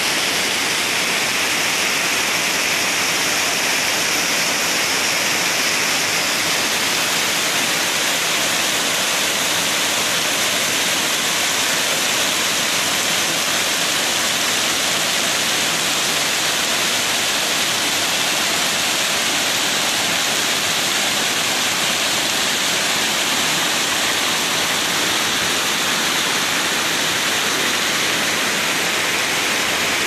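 Waterfall pouring down over rocks: a steady, unbroken rush of water with a bright hiss.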